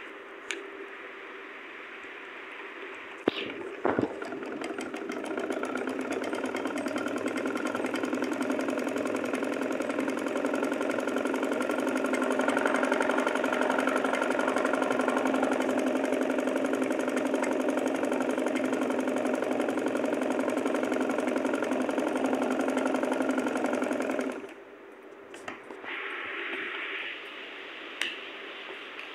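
Sewing machine stitching fabric, running steadily at speed for about twenty seconds, then stopping suddenly. A couple of sharp clicks come just before it starts.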